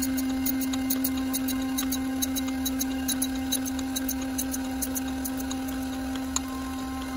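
DoALL surface grinder running a grinding pass on a 1911 frame part: a steady hum from the wheel and spindle with a quick, irregular crackle of the wheel cutting metal.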